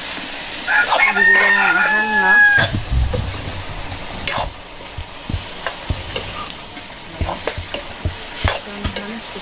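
A rooster crows once, about a second in, for about two seconds, ending on a held high note. Food sizzles in a wok over a wood fire, with the metal spatula scraping and knocking against the pan.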